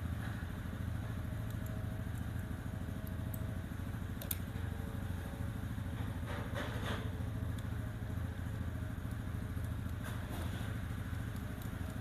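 A steady low engine rumble, like a small engine idling, with a few light clicks from a screwdriver working on a plastic washing-machine water inlet valve.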